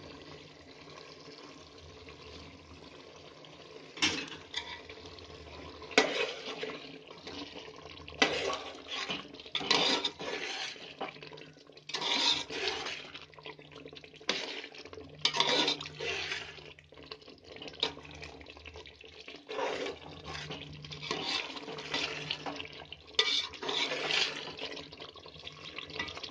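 A steel slotted ladle stirring and sloshing through watery potato and tomato curry in an aluminium pot, mixing in freshly added spice powders. The strokes are irregular, with a couple of sharp clinks of the ladle against the pot about four and six seconds in.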